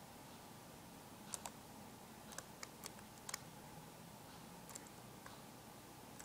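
Faint, scattered clicks of computer keyboard keys, some single and some in quick pairs, over a low room hiss.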